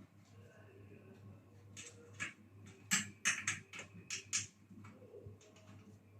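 A quick run of sharp clicks and light clinks, about a dozen in two and a half seconds, from small hard parts or tools being handled during the microwave repair, over a steady low hum.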